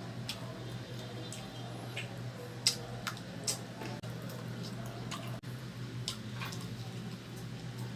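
Close-miked eating sounds: scattered wet mouth clicks and smacks while chewing roast chicken, over a steady low hum.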